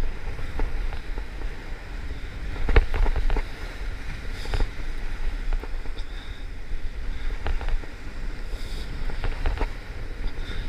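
Wind rumbling on the microphone and surf washing against a rock ledge, with scattered sharp clicks and knocks, the loudest about three seconds in.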